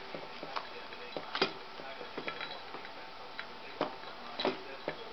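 A gerbil scrabbling in wood-shaving bedding around its metal food bowl: irregular small clicks and taps, with a sharper knock about a second and a half in and two more near the end.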